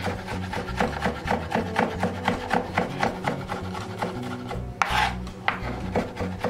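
Chef's knife rapidly mincing garlic on a bamboo cutting board: quick, even blade strikes on the wood, about four a second, with one heavier stroke a little before the end.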